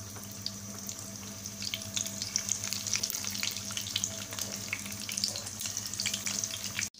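Pastry-wrapped chicken macaroni rolls deep-frying in hot oil in a wok: a steady sizzle full of small crackling pops, getting busier about two seconds in. The sound cuts out for an instant near the end.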